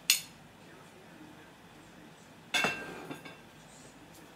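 A spoon and plate clink as shredded chicken is scraped off the plate into a bowl of macaroni. There is a sharp clink right at the start, then a louder knock about two and a half seconds in that rings briefly.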